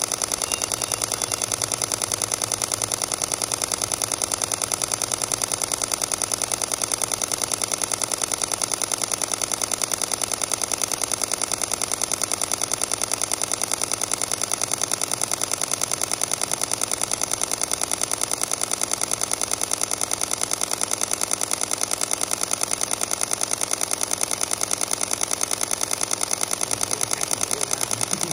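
Sony A7 IV mechanical shutter firing a long continuous high-speed burst: a rapid, even, unbroken stream of shutter clicks.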